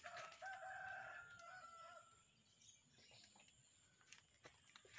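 A rooster crowing once, faintly; the crow lasts about two seconds.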